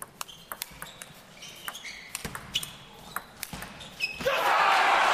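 Table tennis rally: the celluloid ball ticking off rackets and table in an irregular run of sharp clicks, some with a short ringing ping. About four seconds in, the rally ends and a hall crowd breaks into loud applause and cheering.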